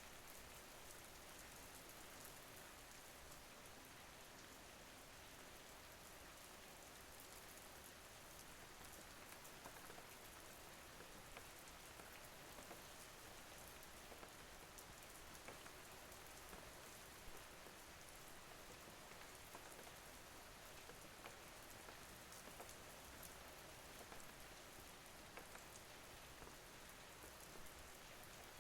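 Steady, soft rain falling on a surface, with the patter of individual drops.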